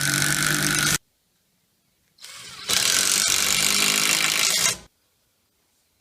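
Power drill driving screws into wood through a metal flange: one screw run stops sharply about a second in, then a second run starts about two seconds in, picks up speed, and stops just before the five-second mark.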